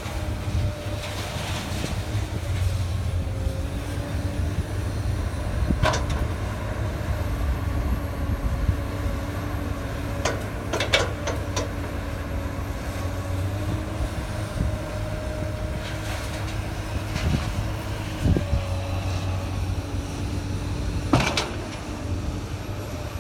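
Komatsu hydraulic excavator running with a steady engine rumble and a held whine that fades out about eighteen seconds in. Sharp clanks sound about six seconds in, in a quick cluster around eleven seconds, and once more near the end.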